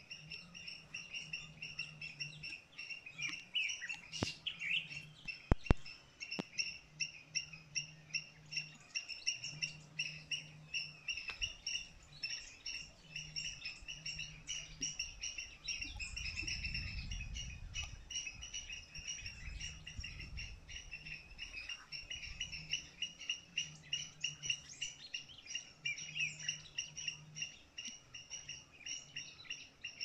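Dawn chorus of birds in forest: a dense stream of quick, repeated high chirps, with a few sharp clicks about four to six seconds in and a low rumble around the middle.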